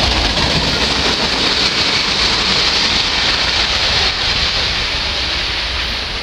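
Freight train's steel wheels rolling on the rails as the last cars go by and the train moves away, a steady hiss that eases slightly near the end.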